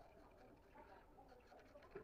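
Near silence: faint room tone with a faint indistinct background murmur, and a soft knock near the end.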